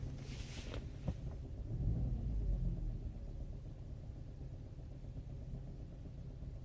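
2015 Porsche Cayenne engine running, heard from inside the cabin as a steady low rumble. There is a short hiss and two sharp clicks in the first second, and the rumble swells louder about two seconds in.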